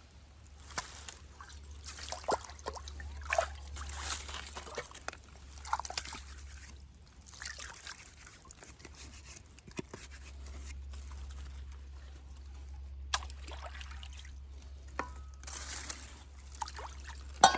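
Water trickling and sloshing in irregular spells of a few seconds, with scattered small clicks and a sharp knock near the end.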